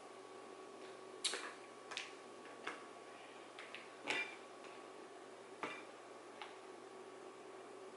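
Scattered sharp clicks and light cracks as crab legs and their shells are handled on a plate during eating, about seven in all, the loudest about four seconds in, over a faint steady hum.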